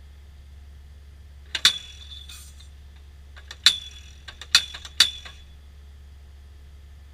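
Hydraulic fence post thumper clanking steel on steel against a steel fence post: four loud, sharp metallic strikes, each ringing briefly, spaced unevenly over about three seconds starting a little after a second in, with a few lighter clinks between them, over a steady low hum.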